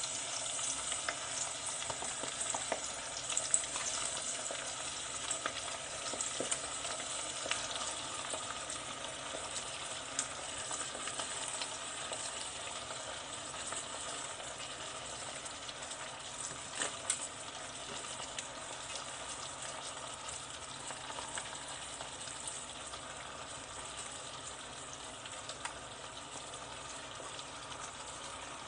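Palm oil with onions sizzling steadily in a small steel pot, with scattered small crackles, slowly getting a little quieter as chopped waterleaf is piled in.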